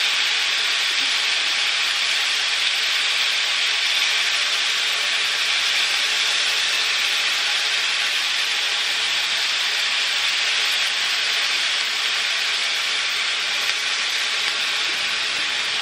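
Chicken pieces frying in a hot cast-iron skillet: a steady sizzle.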